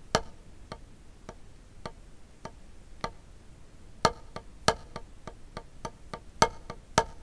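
Wooden drumsticks striking a practice pad. There are even single taps about two a second, then about four seconds in a faster run of strokes in which the accented strokes are much louder, as in an accented full/tap/down/up-stroke sticking exercise.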